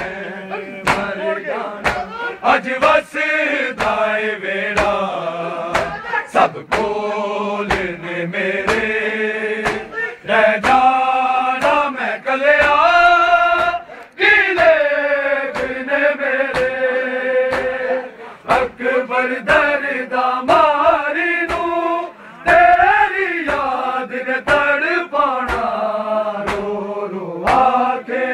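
Men chanting a Shia Muharram noha (lament) in chorus, over a steady beat of sharp hand slaps on bare chests (matam).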